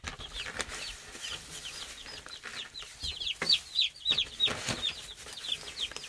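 A brood of baby chicks peeping without pause: many short, high, falling peeps, the shrill calls of chicks alarmed and upset. A couple of brief rustles sound about halfway through.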